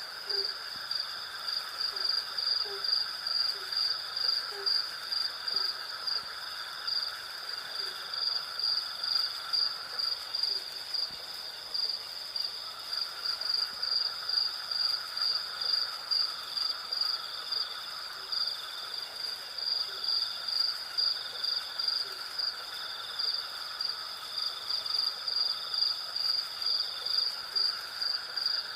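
Night insect chorus of crickets and cicadas: a high, steady pulsing trill with a lower buzzing band beneath it. A soft, short low note repeats about once a second at first, then only now and then.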